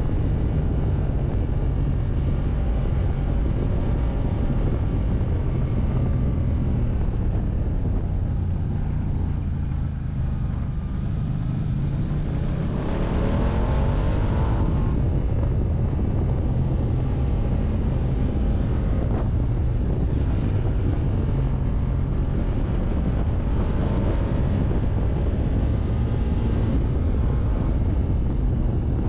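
Ducati Diavel 1260 S's V-twin engine running as the bike rides along, with wind rush. The revs ease off about ten seconds in, then climb again as the bike accelerates.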